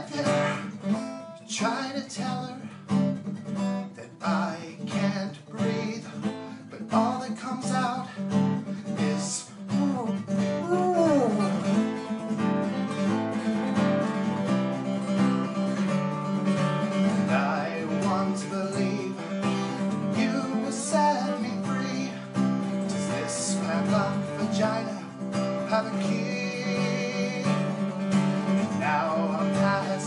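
Acoustic guitar strummed and picked, with a man singing over it at times.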